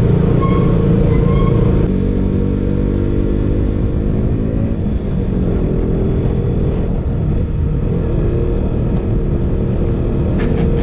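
KTM RC 200's single-cylinder engine running under way, steady, its note easing down about two seconds in and then holding. Two short high beeps sound in the first second and a half.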